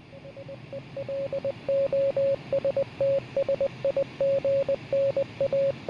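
A single beeping tone keyed on and off in short and long beeps like Morse code, over radio static hiss and a low hum. It fades in over the first second or two.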